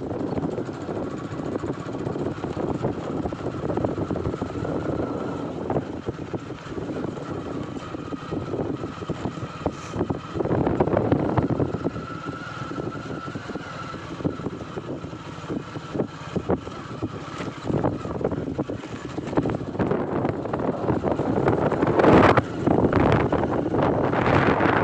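A motorcycle running along an unpaved dirt road, with wind rushing over the microphone and scattered knocks from bumps. It grows louder near the end.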